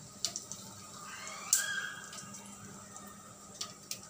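Whole spices sizzling in hot oil in a kadhai as a cinnamon stick is broken and dropped in. Over the steady sizzle come a few sharp cracks, the loudest about a second and a half in.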